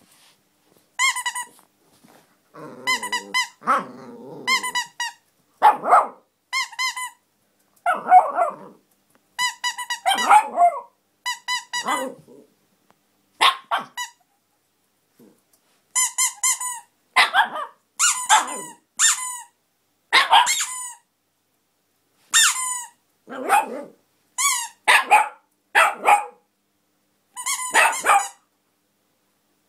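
A plush squeaky toy squeaking in short quick runs, with a small dog barking and growling between the squeaks during play. There is a lull in the middle before the squeaking and barking start up again.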